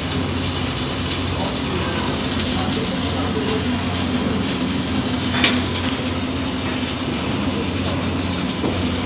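Steady machine hum with a constant low drone and one sharp click about five and a half seconds in.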